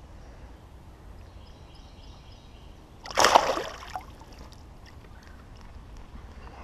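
A single splash in the river water about three seconds in, lasting under a second.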